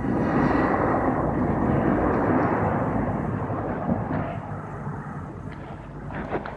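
A passing vehicle: a loud rush of engine and road noise that swells quickly, then fades away over several seconds.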